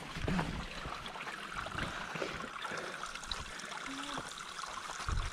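Shallow creek water trickling steadily over stones and fallen logs, with a couple of low thumps near the start and near the end.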